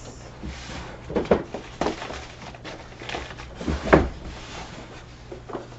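Hands rummaging in a cardboard shipping box: packaging rustling and items knocking against the cardboard, in several short knocks with the loudest about four seconds in.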